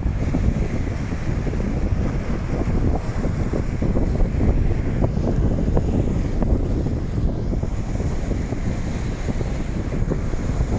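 Strong wind buffeting the microphone in a dense low rumble, over the wash of rough surf on the beach.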